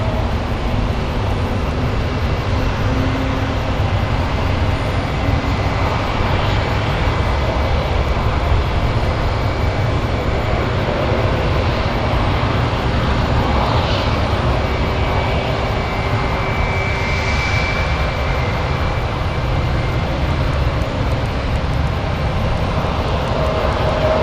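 An Airbus A320-200's jet engines running as the airliner rolls along the runway after touchdown, spoilers raised. A steady rushing jet noise carries a thin, high whine.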